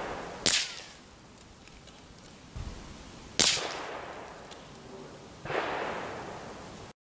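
Tikka T1x .22 LR rifle firing Winchester Subsonic 42 gr rounds: two sharp cracks about three seconds apart, then a softer, duller report near the end. The uneven loudness of the shots is what makes the shooter guess, wildly, that the velocity is a little uneven.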